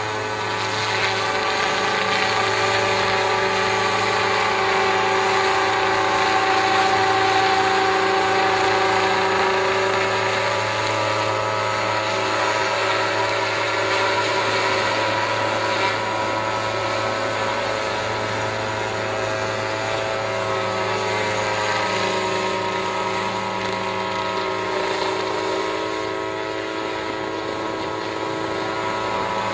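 Remote-controlled crop-spraying helicopter flying low over the fields: a steady engine note with rotor hum. It grows a little louder over the first several seconds, then eases slightly.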